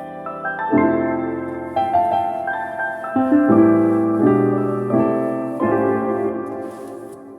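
Background piano music: slow, gentle notes and chords, fading out near the end.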